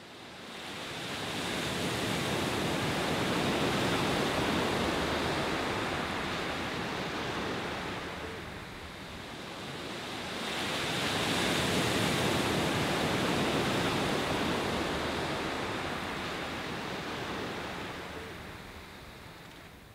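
A steady rushing noise that swells in two long waves of several seconds each, then cuts off sharply at the end.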